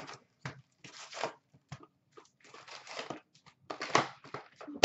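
Upper Deck SP Authentic hockey card box being opened by hand: cardboard and foil card packs rustling and crinkling in short irregular bursts, with a louder tearing crackle about four seconds in.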